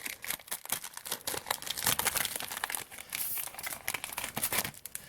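Plastic trading card pack wrapper crinkling and crackling as it is handled and opened, stopping near the end.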